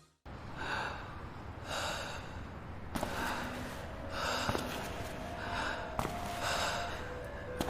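Heavy, rhythmic breathing, with loud breaths about once a second, like panting or snorting.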